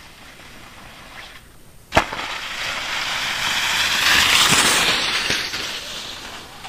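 A ski jumper's skis slap down on the landing slope about two seconds in, then hiss over packed snow, swelling as they pass close and fading again.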